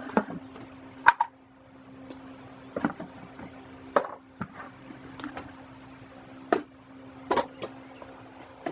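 A few sharp knocks and clatters of plastic items being handled on a wooden workbench, a bucket moved aside and a plastic garbage can lid lifted, over a steady low hum.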